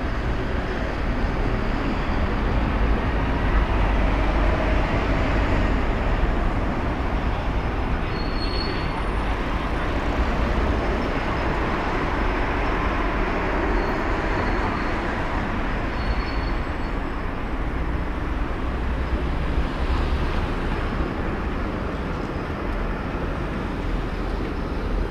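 Steady city street noise with a continuous low rumble of road traffic.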